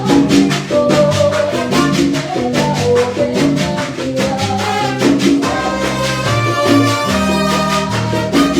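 A salsa band playing live, with a bass line stepping from note to note under the melody instruments and shakers and percussion keeping a steady, fast beat.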